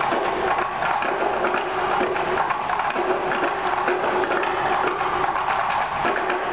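Wooden tub drums struck with wooden sticks and mallets in a fast, dense clattering rhythm. A held note comes and goes behind the strikes.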